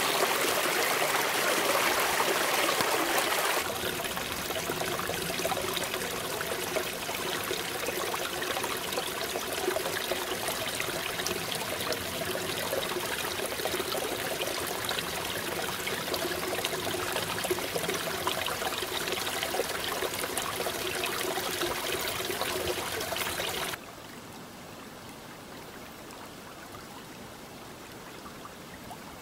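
Small spring-fed headwater creek trickling and burbling over rocks, a steady running-water sound. It drops suddenly in loudness about four seconds in and again, more sharply, near the end.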